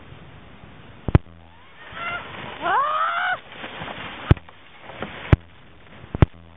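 A person's high yell that rises in pitch and breaks off, about two to three seconds in. Four sharp, loud knocks are spread through the clip.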